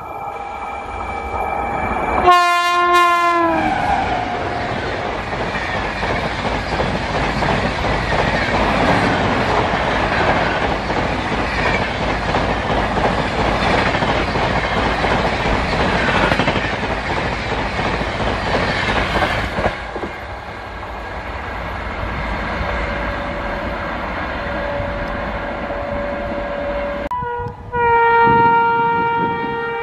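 Indian Railways WAP-7 electric locomotive's air horn sounding as an express approaches, its pitch dropping as the locomotive rushes past about two seconds in, followed by the steady rumble of its coaches passing at speed until about twenty seconds in. Near the end the air horn of the next electric locomotive sounds loudly as it approaches.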